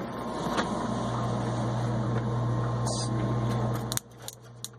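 A steady low mechanical hum that cuts off suddenly about four seconds in. Right after it, sharp clicks begin at about three a second, typical of a propane stove's spark igniter being held on to light the oven.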